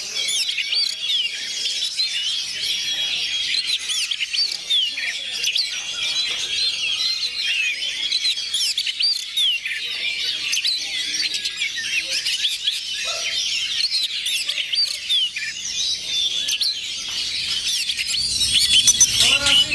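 Oriental magpie-robins singing in competition, many birds at once: a dense, continuous chorus of overlapping whistles, chirps and rapid trills.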